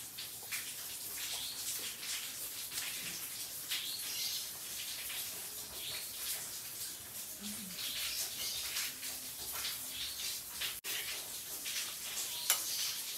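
Eating sounds: chewing and lip-smacking with small clicks from spoons and plates, over a steady hiss. A spoon clinks sharply on a plate near the end.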